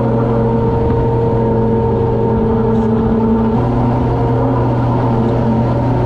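Engine of a running vehicle or farm machine, a steady hum with a slight change in its tones about three and a half seconds in.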